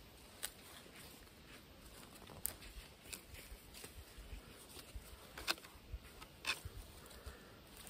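Knife blade cutting and scraping bark off a thin branch in short, irregular strokes, a few of them sharper and louder than the rest.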